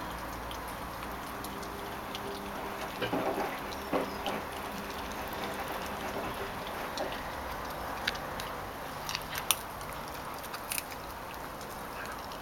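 Yellow Labrador puppy chewing a raw chicken leg bone, with scattered crunches of bone between her teeth: a cluster about three seconds in, and a few sharper cracks in the last few seconds.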